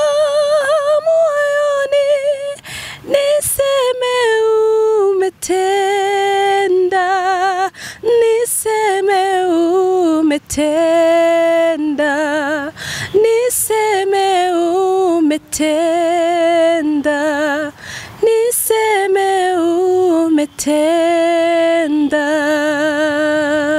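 Two women singing a Swahili worship song unaccompanied, in long held phrases with wide vibrato and short breaths between them, one voice close on a microphone.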